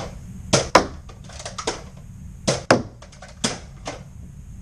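Nerf Elite Disruptor blaster being primed and fired: a series of sharp plastic clacks and snaps, several in quick pairs, with lighter clicks between.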